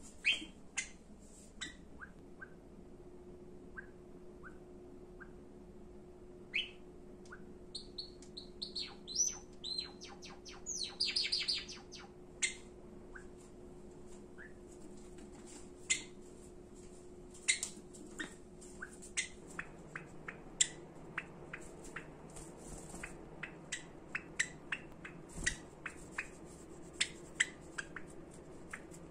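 Pet Java sparrows chirping: short single calls scattered throughout, with a quick run of rapid notes about eleven seconds in.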